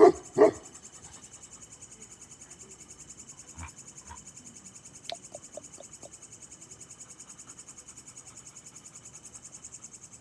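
A Bakarwal dog barks twice in quick succession at the very start. Then crickets chirp steadily, with a few faint clicks in the middle.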